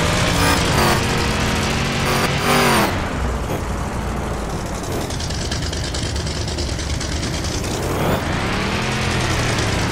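Vehicle engines running and being revved, the engine note rising and falling about two and a half seconds in and again near the end, over a steady low rumble.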